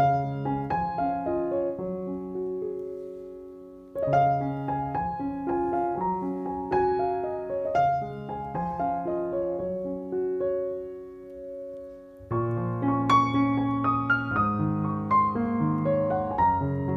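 Background piano music: phrases of struck notes that die away twice before starting again, then a fuller passage with lower bass notes from about twelve seconds in.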